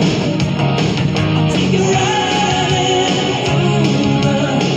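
Background rock music with guitar and singing.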